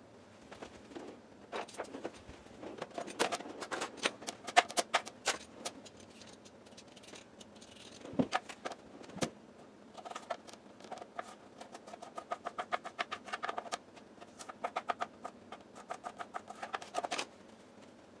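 Kitchen knife chopping on a cutting board: sharp taps, uneven at first, then quick even runs of about five a second, with two heavier knocks around the middle.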